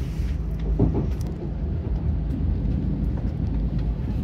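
Steady low rumble of a Shinkansen bullet train heard from inside the passenger cabin as it runs slowly out of the station, with a brief knock about a second in.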